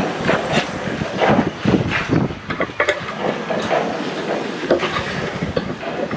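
Irregular clicks, knocks and scrapes of a hand tool working on the metal gearbox of a small outboard motor's lower unit.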